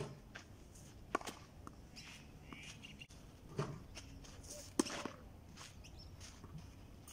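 A few sharp knocks of tennis balls fed by a ball machine and volleyed with a wooden stick, with light footsteps scuffing on a clay court; the loudest knock comes about five seconds in.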